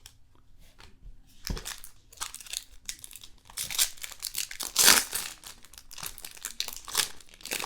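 Trading-card pack wrapper crinkling and being torn open by hand, in irregular crackles, loudest about five seconds in.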